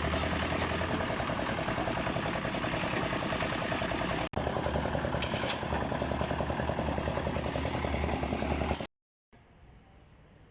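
Engine running steadily at a fast, even beat. It breaks off for an instant about four seconds in, then cuts off sharply near the end, leaving only faint background.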